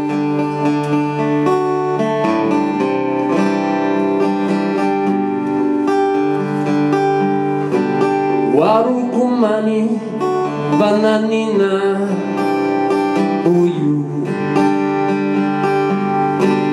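Acoustic guitar playing a picked introduction with held, ringing notes. About halfway through, a voice joins with sliding, wordless notes, and returns near the end.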